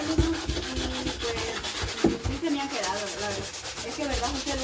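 Sandpaper rubbed by hand over the wooden top of a large acoustic bass guitar in quick, even strokes, taking off the old paint to refinish it.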